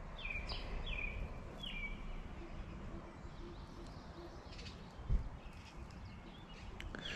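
A bird calling: short chirps that slide down in pitch, about two a second, through the first two seconds and again near the end. Beneath it is steady low background noise, with a single low thump about five seconds in.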